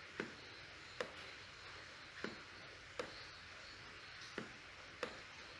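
Laptop touchpad clicking as strokes are drawn by hand on screen: six short, sharp clicks at uneven intervals, roughly a second apart, over faint hiss.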